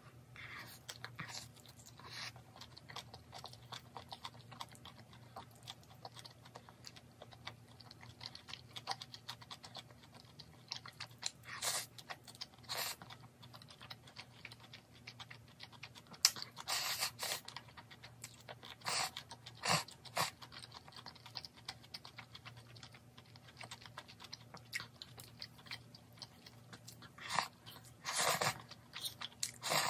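Close-miked eating: a person chewing and crunching food, with many small wet mouth clicks and a few louder bursts of eating noise, the loudest clustered a little past halfway and again near the end.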